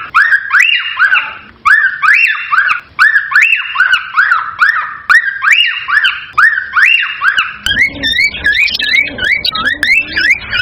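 Male cockatiel whistling its song: a run of up-and-down whistled notes, about two a second, that turns near the end into quicker rising whistles over a lower sound.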